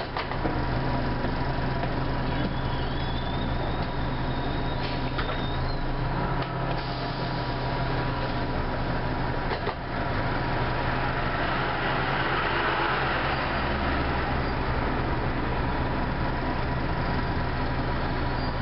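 An Orion V transit bus's diesel engine running steadily, heard from inside the bus near the front, with a steady thin whine and a few faint clicks and rattles. The engine sound grows louder about two-thirds of the way through.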